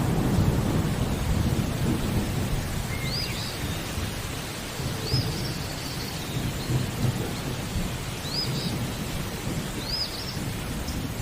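Thunder rumbling over steady rain, loudest at the start and easing after about two seconds. A bird repeats a short, high whistle that rises and falls, about four times.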